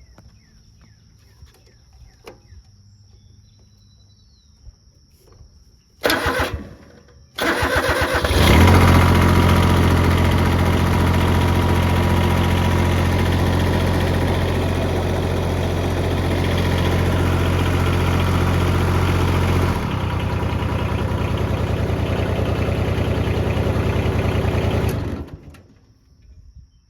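Grasshopper 721D zero-turn mower's diesel engine: after a short burst of noise about six seconds in, the starter cranks and the engine catches and runs steadily. Its note shifts once about twenty seconds in, and it is shut off near the end.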